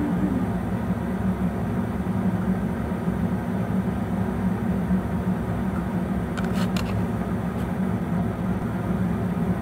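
Steady low mechanical hum with no speech, with a brief faint tapping about six and a half seconds in.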